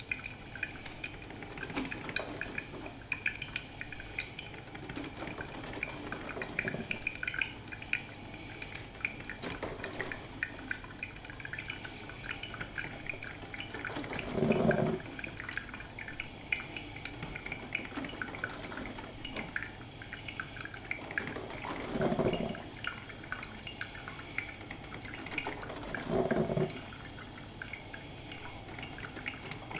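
Drip filter coffee machine brewing: a steady patter of small drips and crackles, with three louder gurgles, one about halfway through and two near the end, as the heater pushes hot water up to the filter.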